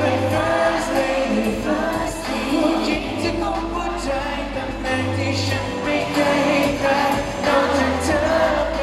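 A man singing a pop song live into a handheld microphone, with accompaniment and a steady bass line underneath.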